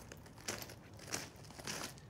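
Footsteps crunching on loose decorative landscape rock, three steps in an even walking rhythm.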